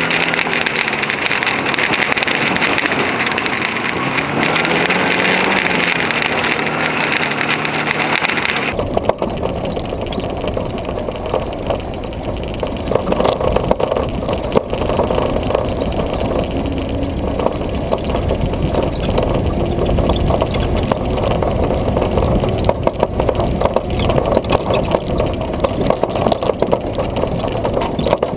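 WWII-style military jeep driving, its engine rising and falling in pitch. About nine seconds in the sound changes abruptly to a rougher, noisy rumble with rattling.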